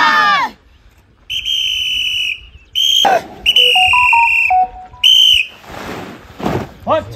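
A whistle blown in four steady, high blasts (long, short, long, short), after a group of voices shouting in unison breaks off about half a second in. Voices start shouting again near the end.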